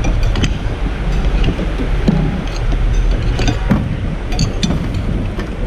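Steady low rumble of background noise with scattered light clinks of a metal spoon against dishes.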